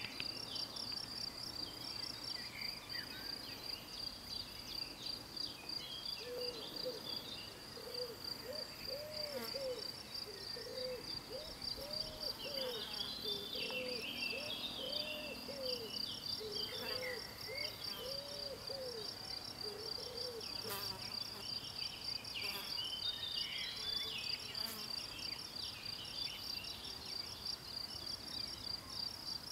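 Insect song from the grassland: a steady, rapidly pulsing high trill that runs on without a break. Through the middle, a run of about a dozen soft, low hooting notes repeats, with scattered higher chirping calls.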